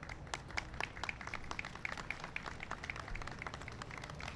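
Light, scattered applause from a small crowd: separate hand claps, several a second, at no steady rhythm.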